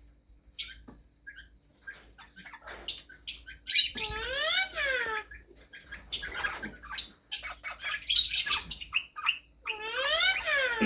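Pet parrots calling in their cage: two drawn-out calls that rise and fall in pitch, about four seconds in and near the end, with short chirps and clicks in between.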